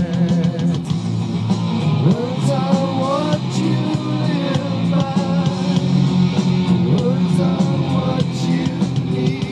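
Rock song playing: guitar and drums with a voice singing a wavering melody over them.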